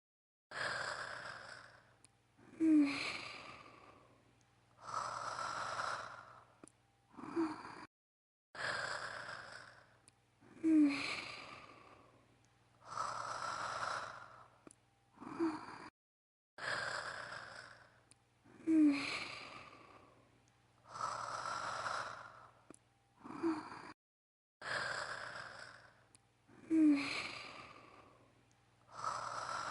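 A woman's voice-acted snoring as Holo: breathy in-breaths, some with a short pitched catch, alternating with long sighing out-breaths. It is a short loop that repeats about every eight seconds, with a brief dead-silent gap between repeats.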